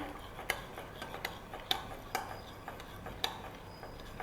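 A utensil stirring sauce in a bowl, tapping lightly against the bowl's side in irregular clicks about twice a second.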